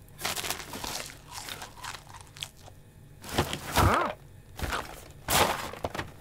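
Cartoon foley of a cat rummaging in a cardboard box of groceries: irregular rustling and crunching of packaging. The loudest crunches come about four and five seconds in, with a short pitched squeak just before four seconds.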